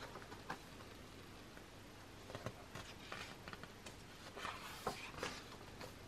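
Faint rustling and light taps of thick photobook pages being handled, with a page turned about four to five seconds in.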